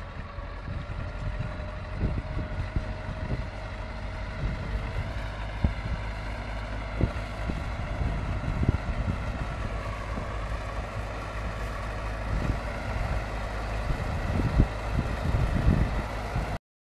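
MTZ-82 tractor's four-cylinder diesel engine running steadily under load while it pulls a seed drill, with irregular low thumps of wind on the microphone. The sound cuts out abruptly near the end.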